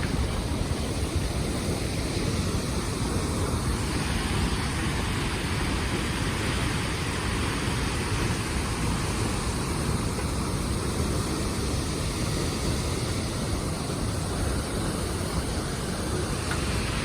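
Steady rushing noise of Wailua Falls, a large waterfall pouring into its pool.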